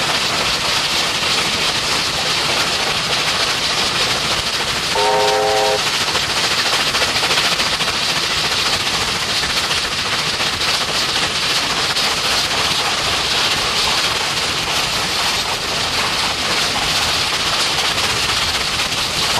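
NSW 38 class steam locomotive running under way, a steady loud roar of exhaust and wheels on rail, with one short whistle blast of about a second, a chord of several notes, about five seconds in.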